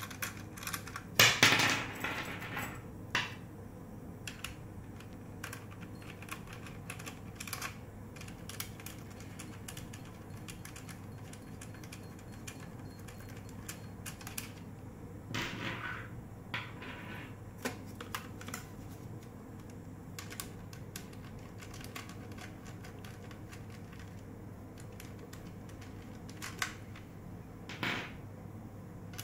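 Small metallic clicks and light knocks from a hex screwdriver turning out the screws of a weather sensor's aluminium flange plate, with the parts handled and screws set down on a wooden table. A louder clatter comes about a second in, again near the middle and once more near the end.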